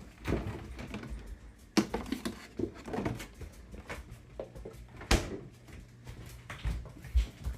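Mame-shiba dog eating: scattered irregular clicks and knocks, with two sharper knocks, one near the start and one about halfway through.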